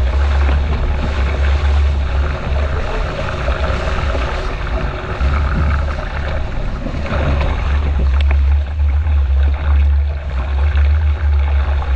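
Strong wind buffeting the microphone in gusts, over water rushing and splashing past a sailing dinghy.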